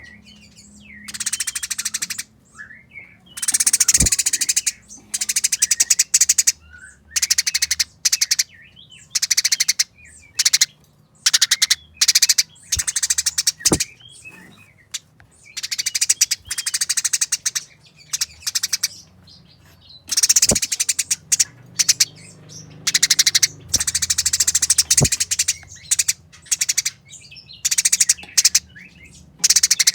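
Eurasian tree sparrows fighting, giving fast, dense, harsh chattering in repeated bouts of a second or two, with short chirps in between.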